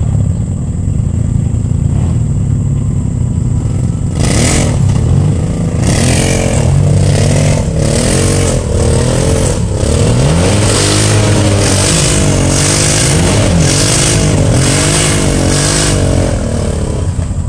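Engine of an off-road vehicle stuck in deep mud, running steadily at first and then, about four seconds in, revving up and down again and again, about once a second, as its wheels spin in the mud.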